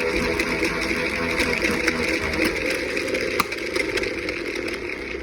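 Vacuum cleaner wheel spinning, making a buzzing drone like a propeller-plane engine. It grows gradually quieter over the second half.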